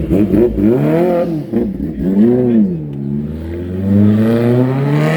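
Sport motorcycle engine being revved: a few quick throttle blips, each rising and falling in pitch, then a longer rev that climbs steadily for about two seconds.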